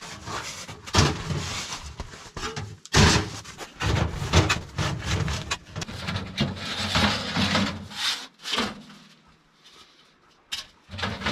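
Camp wood stove being unpacked and its parts fitted together: irregular knocks, clatter and scraping, with a quieter pause near the end.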